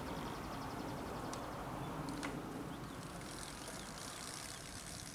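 Artificial high-pitched chirping from a wired birdhouse sound installation, a rapid, evenly spaced twitter that stops just after the start and comes back fainter later, over a steady low outdoor rumble. Two short, sharp clicks in the middle.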